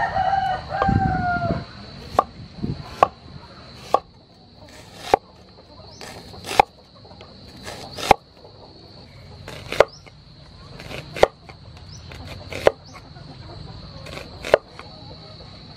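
Knife slicing an onion on a wooden cutting board, the blade knocking the board in single strokes about every one and a half seconds. A rooster crows once at the start.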